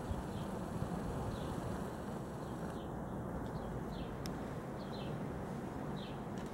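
A small bird chirping, short falling chirps repeated roughly once a second, over a steady low outdoor rumble. One sharp click sounds a little past the middle.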